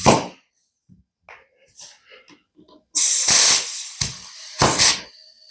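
Compressed air hissing from a tire chuck in bursts as a flat, dry-rotted tire on a compressor cart is inflated: a long hiss about three seconds in and a short one near the end, with faint handling clicks before.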